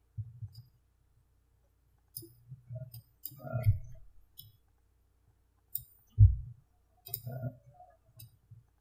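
Computer mouse clicking in scattered, irregular clicks while making selections, with a few low bumps among them, the loudest a single low thump about six seconds in.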